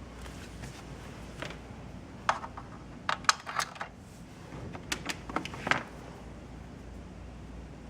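Light clicks and taps of small objects being handled, in two short clusters about two to four and five to six seconds in, over a low steady room hum.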